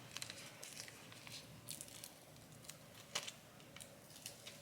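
Faint crinkling and small clicks of thin transparent plastic film being handled and peeled, with a sharper click about three seconds in.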